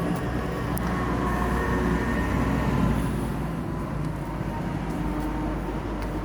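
Farm tractor engine running steadily as it approaches, a deep low hum that grows louder to about three seconds in, then eases slightly.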